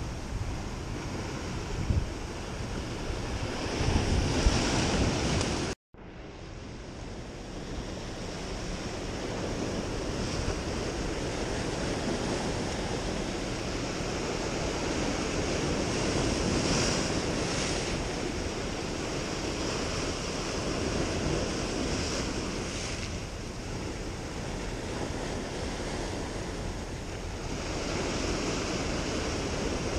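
Ocean surf washing and breaking against the rocks, with wind buffeting the microphone. The sound cuts out for a moment about six seconds in, then the surf noise builds again.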